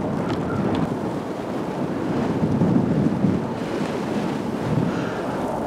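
Strong blizzard wind buffeting the microphone: a steady low rush of noise that swells in gusts and eases again.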